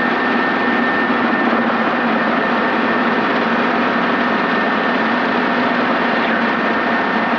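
Helicopter engine and rotor noise during a descent: a steady drone with a constant low hum and a thin, steady high whine.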